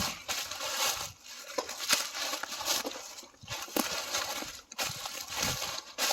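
Footsteps crunching and rustling through dry leaves and brush, uneven steps down a slope.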